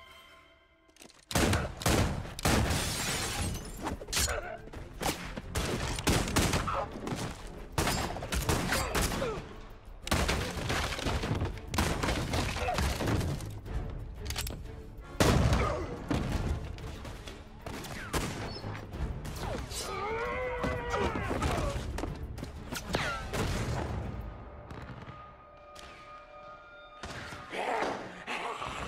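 Film gunfight: gunfire from many guns in quick, irregular volleys with crashes and thuds, starting suddenly about a second in. A wavering cry rises and falls about twenty seconds in.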